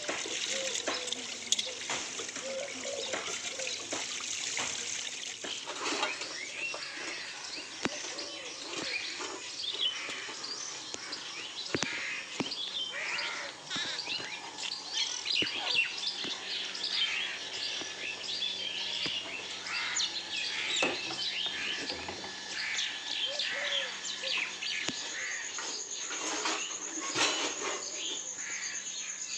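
Many birds chirping and calling, with occasional sharp clinks of steel utensils being washed and handled. A steady, high, pulsing trill starts near the end.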